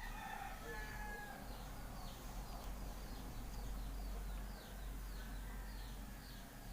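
Faint outdoor background: a run of short high chirps repeating about three times a second, with a few brief whistle-like calls in the first second and a steady low hum underneath.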